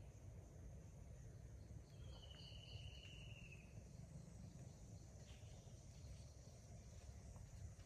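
Faint outdoor ambience: a steady high insect drone over a low rumble, with one short pulsing trill, falling slightly in pitch, about two seconds in.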